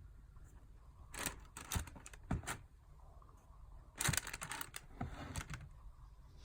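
Handling noises from sneakers and their packaging: two short bursts of clicks, taps and rustling, one about a second in and one about four seconds in.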